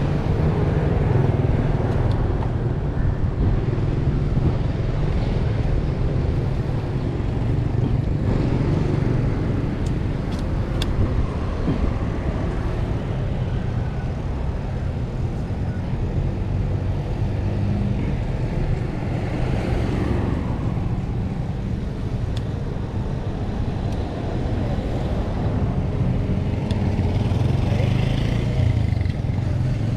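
Motorcycle riding on the road, its engine and the wind over the microphone making a steady low rumble.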